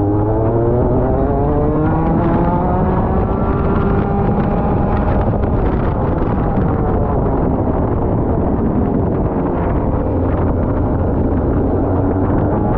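Rotax Max 125cc single-cylinder two-stroke kart engine running on track. It revs up in pitch over the first few seconds, holds, eases off in the middle and climbs again near the end, with wind buffeting the microphone.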